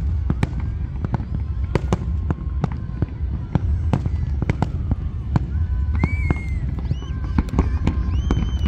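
Distant aerial fireworks shells bursting, many sharp bangs and crackles in quick, irregular succession over a deep continuous rumble, with crowd voices in the background.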